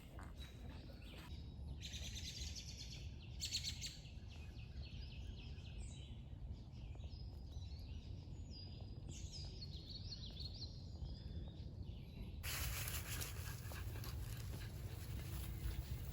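Birds chirping and singing over steady outdoor background noise with a low rumble. A brighter hiss comes in suddenly about twelve seconds in.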